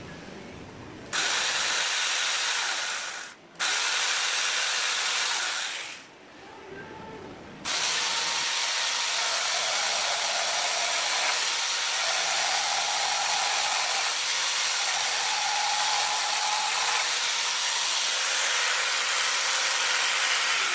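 Angle grinder fitted as a mini chainsaw running with a high, hissing whine. It starts about a second in, cuts out briefly, stops again for over a second, then runs steadily.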